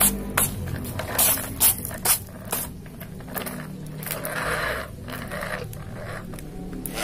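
Plastic toy excavator being handled and pushed onto a cardboard trailer bed: a string of sharp plastic clicks and rattles in the first couple of seconds, then a softer scrape about four seconds in.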